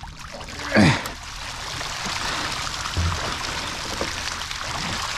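Water streaming and trickling off a wire-mesh fish trap packed with fish as it is hauled up out of the river. About a second in there is a short, strained vocal sound.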